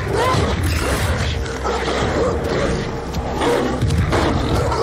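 Several wolves growling, over a steady low rumble.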